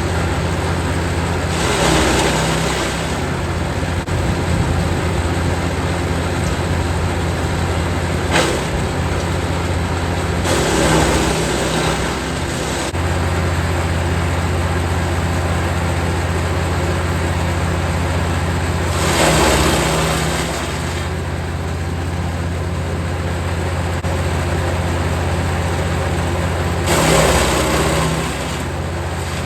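Jansen 1500e GTS wood chipper's engine running steadily under a low drone, with louder crunching surges every several seconds as branches are fed in and chipped, and one sharp crack about eight seconds in.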